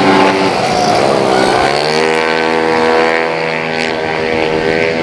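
Yamaha Mio J automatic scooter with a 130cc race-tuned engine running hard: the engine note drops off for about a second and a half, then climbs again as the bike accelerates and holds at high revs.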